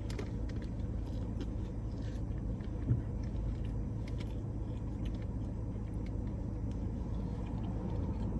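A steady low background rumble, with faint clicks of eating and handling food and a soft knock about three seconds in.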